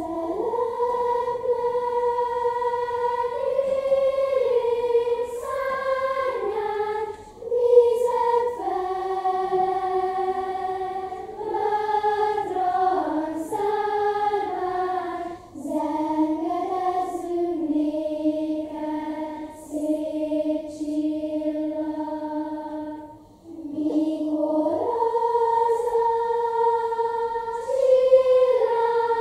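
Children's choir singing unaccompanied, slow phrases of long held notes that move step by step, with short breaks for breath about seven and a half and twenty-three seconds in.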